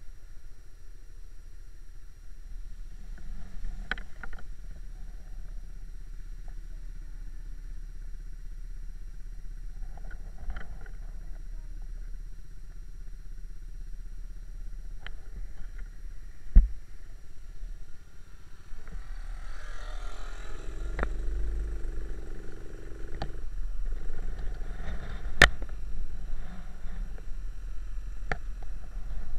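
Small trail motorbike engine running while riding a rough dirt track, with wind rumble on the microphone and sharp knocks as the bike jolts over bumps, two loudest about halfway and near the end.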